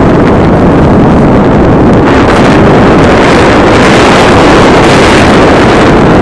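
Airflow rushing over the microphone of a mobile phone carried on an RC glider in flight: loud, steady wind noise with no break.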